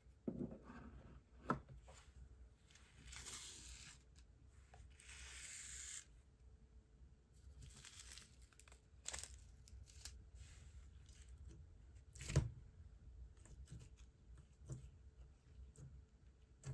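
Plastic slime-kit packaging being torn open and handled in three short tearing stretches, with scattered light knocks of plastic tubs on a wooden table, one sharper knock about two-thirds of the way through.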